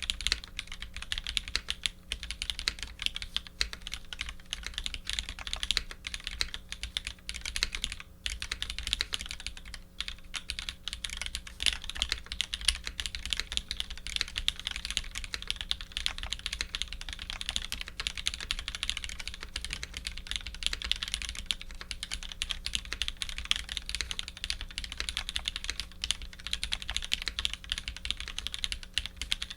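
Continuous fast typing on a Matrix 2.0 add custom mechanical keyboard fitted with lubed vintage black linear switches, an aluminium plate and GMK keycaps: a dense, even run of keystroke clacks.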